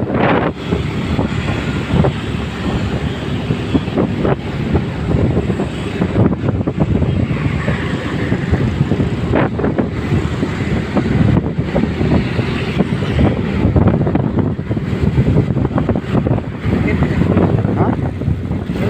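Vehicle running, with heavy wind buffeting on the microphone.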